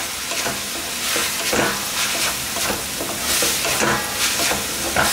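Wooden spatula scraping and stirring minced mutton in an aluminium kadhai, with a stroke about every half second over the steady sizzle of the oil. Fried ginger-garlic paste is being mixed into the boiled keema.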